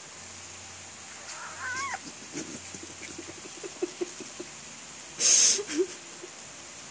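A cat mews once, a short high call that rises and drops, about a second and a half in. Soft clicking follows for a couple of seconds, then a short loud hiss near the end.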